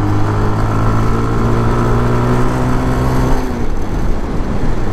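Honda CB300R single-cylinder engine running at a steady cruise, with wind and road noise rushing over the helmet microphone. The steady engine note fades away about three and a half seconds in, leaving mostly wind noise.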